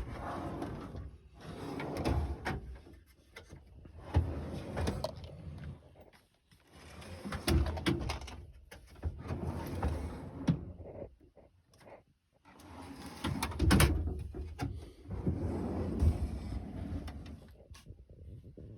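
Metal tool-box drawers sliding open and shut, with tools clattering and knocking as they are packed in, in several separate bursts.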